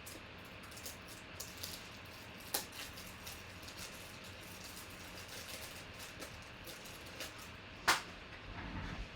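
Trading cards and plastic card sleeves being handled and sorted on a table: a run of light clicks and taps, with a sharper tap about two and a half seconds in and a louder one near eight seconds.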